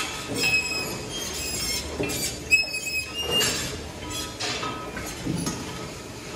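Metal squeaking in short high squeals, with dull knocks every second or two.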